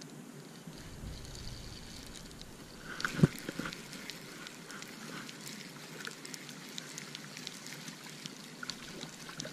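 Small fish splashing and water dripping at the shoreline as it is landed by hand, with one sharp thump about three seconds in and scattered light clicks after it.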